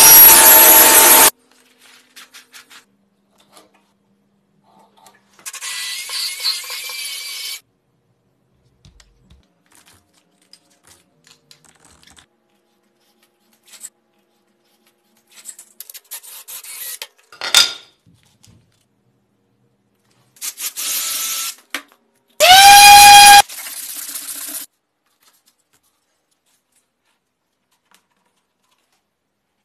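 Short bursts of woodworking shop noise separated by quiet: a table saw running through wood for about a second at the start, then shorter tool sounds and a sharp click. Near the end, a power tool motor spins up with a quickly rising whine that then holds steady.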